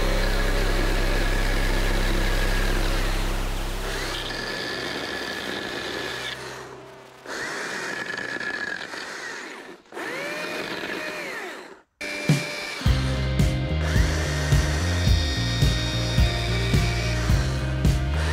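Stihl MSA 200 C-B cordless chainsaw repeatedly spinning up to a high whine, running a second or two, and winding down, about five times in short bursts. Background music plays underneath and picks up a steady beat about two-thirds of the way through.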